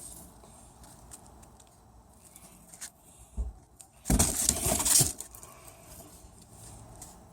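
Rolls of sandpaper being handled and rummaged through in their box: a few faint knocks, then about a second of loud rustling and clatter a little past the middle.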